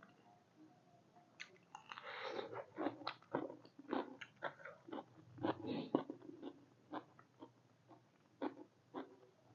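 A person biting and chewing crunchy food: after a quiet start, a quick, irregular run of crisp crunches begins about a second and a half in and thins out near the end.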